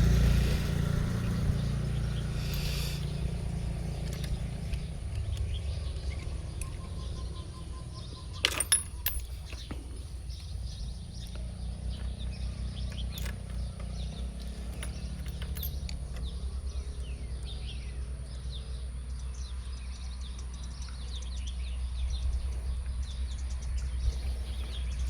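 Outdoor background with a steady low rumble and faint bird chirps, broken by a few sharp metallic clicks about eight to nine seconds in as work goes on at the motorbike's spark plug.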